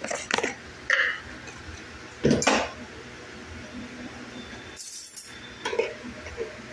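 A steel ladle clinking and scraping against a metal pan while stirring kadhi: a few separate knocks, the loudest about two and a half seconds in.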